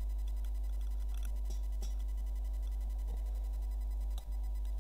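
Steady low electrical hum picked up by a laptop's built-in webcam microphone, with a few faint scattered ticks and taps. The hum drops out for an instant near the end.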